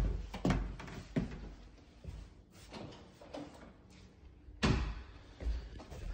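Footsteps thumping on the top wooden stair treads and onto a tile floor, then quieter steps, and about four and a half seconds in one loud thump of an interior door being shut.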